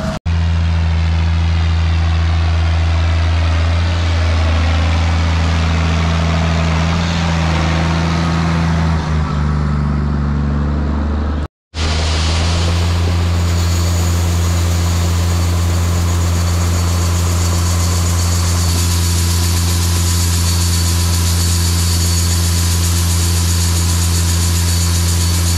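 Large farm diesel engine running steadily, a low constant drone, cut off for a moment about halfway through before resuming, with a faint high whine added in the second half.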